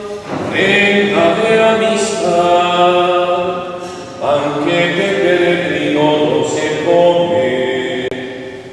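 A slow hymn sung in a chant-like style, in long held notes. One phrase ends and a new one starts just after the start, and another about four seconds in.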